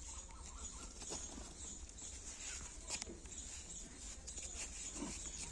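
Faint handling of a fabric riding glove being pulled onto a hand: a few soft clicks and rustles over a steady high hiss.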